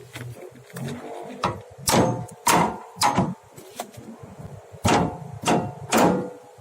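Six hard blows of metal on metal, in two quick sets of three, each leaving a short ringing, typical of a hammer striking steel parts of a vehicle's steering linkage.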